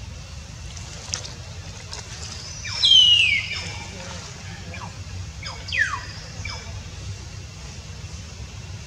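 Baby monkey squealing, high-pitched calls that fall in pitch: a loud one about three seconds in, another near six seconds, and a few fainter ones between.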